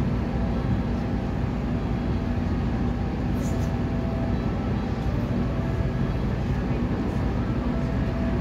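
Steady, even low rumble of background noise with a few faint held tones over it.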